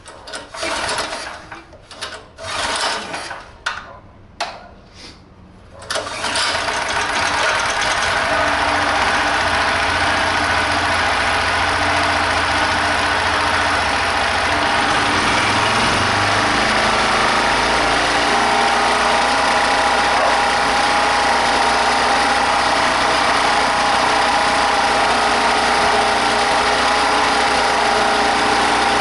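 Small single-cylinder generator engine cranked in several short bursts, then catching about six seconds in and running steadily. It runs with a small noise from its damaged connecting-rod bearings.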